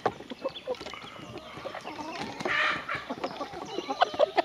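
A flock of hens and young roosters clucking and calling close by, with a louder, noisier burst about two and a half seconds in.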